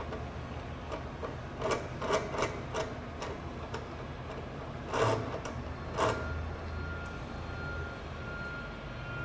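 Hand handling a fitting on a stainless steel mixer feed chute: a run of light metallic clicks, then two sharper knocks about a second apart, over a steady low hum. A thin steady tone comes in after the second knock.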